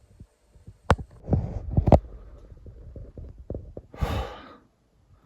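Seed packets being handled: paper rustling with sharp clicks and small knocks, strongest around one to two seconds in, and a short hiss about four seconds in.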